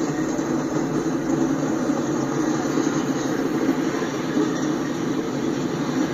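Freight train passing close by: a steady rumble of covered hopper cars and a gondola rolling over the rails.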